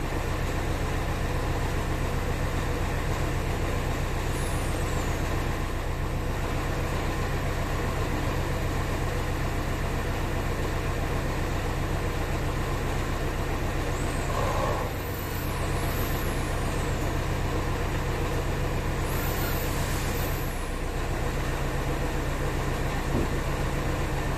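A steady mechanical drone with a low hum under it. A few faint, high chirps glide downward over it about four, fourteen and nineteen seconds in.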